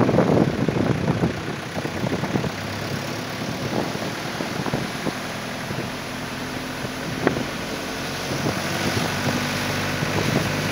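A vehicle engine idling with a steady low hum, under a constant rush of noise from the swollen, flooding river, with one brief click about seven seconds in.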